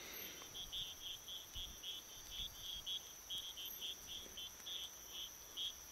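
Night insects: a cricket's short, pulsed chirps repeating about three or four times a second, over a steady high-pitched insect drone.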